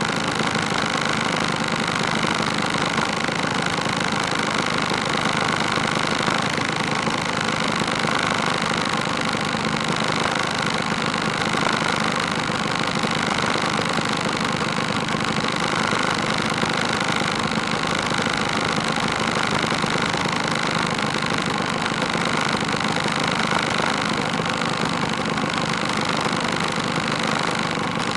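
Several two-stroke scooter engines idling together, a steady, unbroken running sound.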